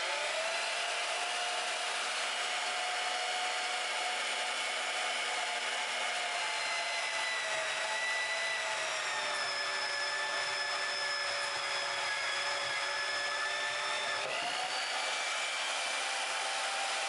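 Bauer portable band saw running and cutting through a block of wood: a steady motor and blade whine whose pitch slowly sinks as the blade works through the wood under load. About fourteen seconds in, the pitch dips and then climbs back up as the blade finishes the cut and the saw runs free.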